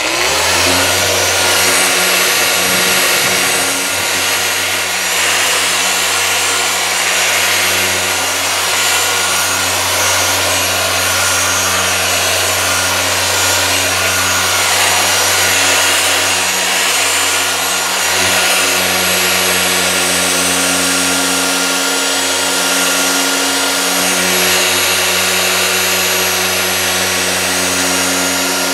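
A Griot's Garage 6-inch dual-action random orbital polisher spins up and then runs steadily at high speed (setting 5 to 6), with a steady motor hum. Its yellow foam cutting pad is working polish across a boat's gel coat to take off water spots.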